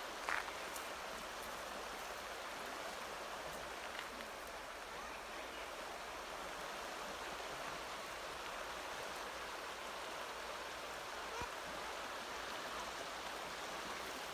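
Shallow mountain river running over stones: a steady rushing. A brief knock sounds about a third of a second in.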